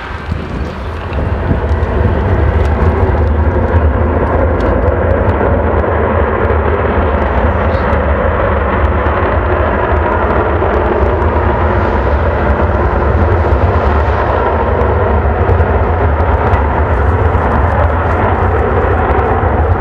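Tu-134A-3's Soloviev D-30 low-bypass turbofans at high power, a loud, steady jet noise with a heavy low rumble that builds over the first two seconds and then holds.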